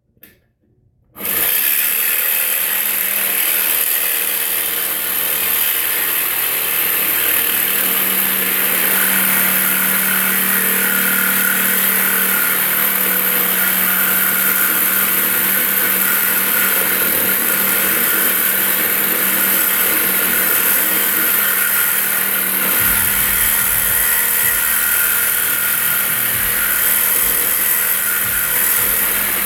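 Power saw starts about a second in and runs steadily, cutting through the steel of a car exhaust pipe with a blade that is wearing dull.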